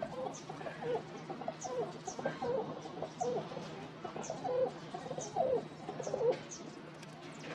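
Domestic pigeons cooing in a run of short low calls, with thin high chirps from other birds about every half second and a faint steady hum underneath.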